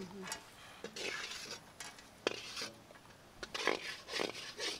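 Irregular rustling and light clinks from handling stainless-steel bowls and dishes.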